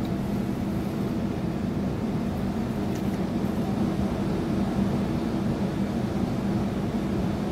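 Electric suburban passenger train running at speed, heard from inside the carriage: a steady low rumble and hum from the wheels on the rails and the running gear.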